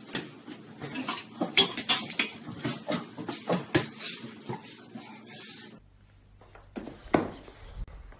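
A cat flap clacking and rattling again and again as a cat pushes and squeezes through it. One more knock near the end.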